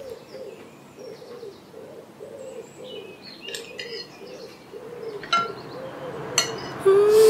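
A dove cooing over and over, about two low coos a second, with small birds chirping now and then. Music comes in near the end, louder than the birds.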